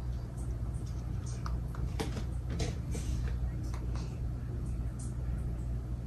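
Hunter 2nd Century Original ceiling fan running, its motor giving a steady low hum, with scattered light clicks and ticks, most of them a couple of seconds in.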